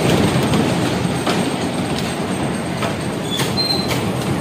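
Bumper cars driving around the arena floor: a steady rumble of the cars' wheels and motors, with a few light knocks and a brief high squeak near the end.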